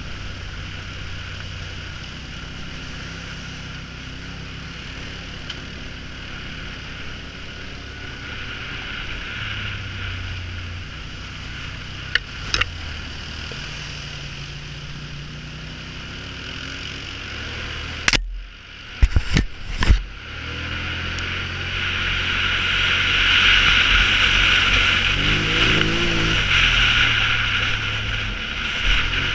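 Polaris Sportsman ATV engine running at trail speed, its pitch shifting as the throttle changes, with a steady hiss of wind and tyres. A few sharp knocks come about two-thirds of the way through as the machine jolts. After that the engine climbs in pitch and the hiss grows louder as it speeds up.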